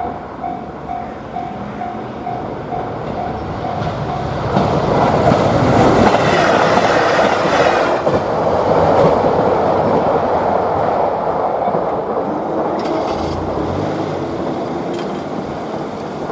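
A Japanese level-crossing warning bell rings at about two strokes a second. About four and a half seconds in, a diesel train passes over the crossing with wheel clatter, is loudest for the next several seconds and drowns out the bell, then gradually fades.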